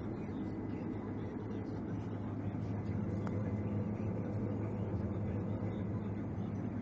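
A harvest machine's engine running steadily, a low even drone.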